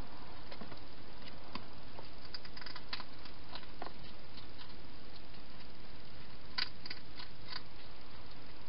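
Hedgehogs eating from bowls inside a plastic feeding box: irregular small crunching clicks, with a tight cluster of four louder ones about two-thirds of the way through, over a steady hiss.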